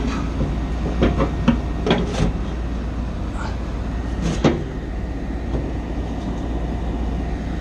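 A few sharp metallic knocks and clicks from handling the parts of a packaged rooftop unit's blower assembly, over a steady low rumble.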